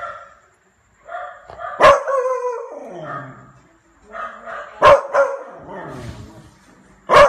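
Beagle puppy barking: three sharp, loud barks about three seconds apart, each running into a drawn-out bay that falls in pitch. The puppy is barking back at neighbouring dogs.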